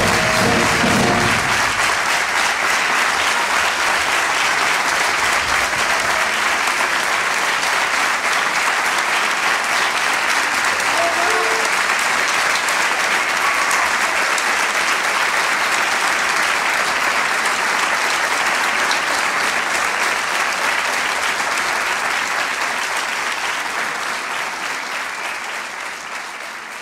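A wind band and choir's final chord cuts off about a second in, and the audience breaks into long, steady applause that gradually dies away near the end.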